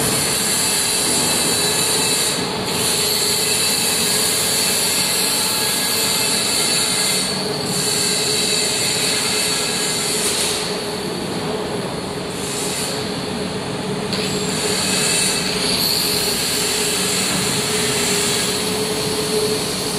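Steady workshop machinery noise: a continuous hum with a high whine over hiss. The highest hiss drops out briefly several times.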